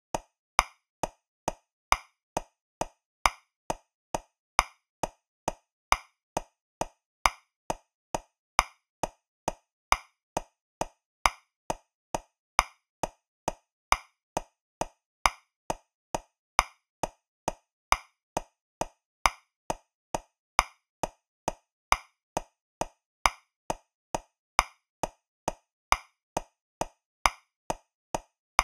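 Metronome click track at 135 beats per minute in 3/4: short, sharp clicks a little over twice a second, with every third click accented and louder to mark the first beat of the bar.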